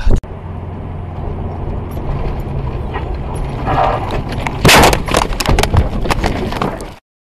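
Car cabin drone of engine and tyres at about 50 mph, then a loud collision impact about four and a half seconds in, followed by several sharp knocks and clatters as the dashcam car crashes. The sound cuts off abruptly near the end.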